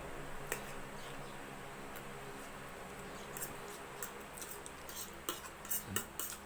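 Eating sounds at a plate of carbonara: light sharp clicks, one about half a second in, then a quick irregular run of them through the second half, over a steady low hum.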